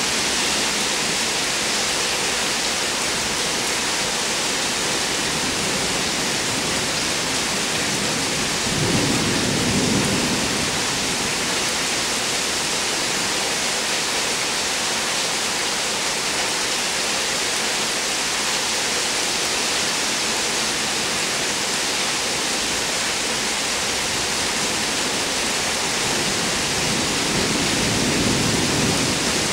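Heavy rain falling in a thunderstorm, a steady dense hiss. Two low rumbles of thunder swell through it, one about nine seconds in and one near the end.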